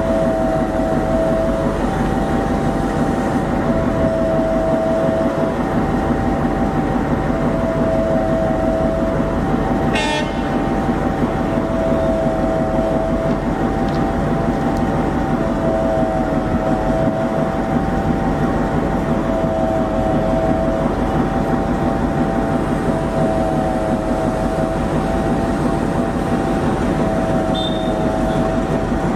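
WDM-3A diesel-electric locomotive's ALCO 16-cylinder engine running steadily as it hauls a passenger train along the track, a whine wavering between two pitches over the engine rumble. A brief sharp sound about ten seconds in.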